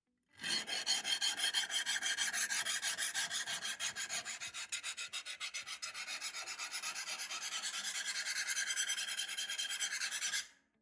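Fast, even scraping or rasping strokes, several a second, starting about half a second in and stopping abruptly just before the end.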